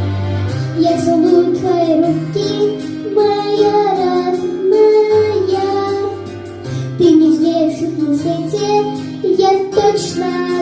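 A child singing a slow, tender song in Russian over instrumental accompaniment, with the voice coming in about half a second in.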